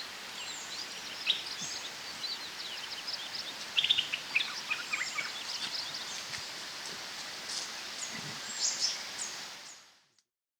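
Several birds chirping and calling in quick short notes over a steady background hiss, fading out near the end.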